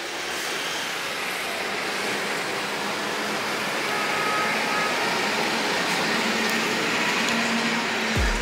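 A rushing whoosh of noise that slowly swells, like an intro riser, ending near the end in a deep falling bass hit as the intro music drops in.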